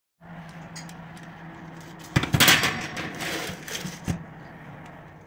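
Metal baking tray scraping as it is slid onto the wire rack of a preheated Beko oven. The scrape is loudest about two seconds in and lasts over a second, followed by a click and a sharp knock at the very end, all over the steady hum of the oven fan.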